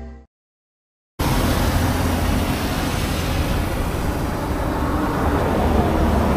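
Ambient background music fading out, a second of dead silence, then a sudden cut to steady outdoor noise with a heavy low rumble.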